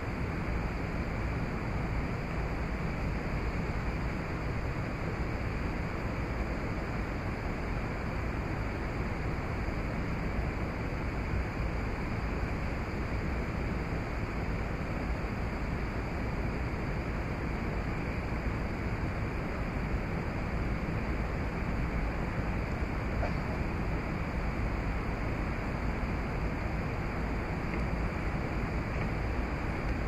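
Steady, even outdoor rushing noise with no distinct events, at a constant level.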